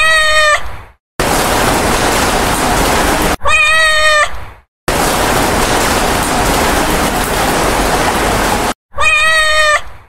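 A cat meowing three times, the same short call held at one pitch each time, near the start, about three and a half seconds in, and about nine seconds in. Between the meows come loud stretches of steady rushing noise that start and stop abruptly.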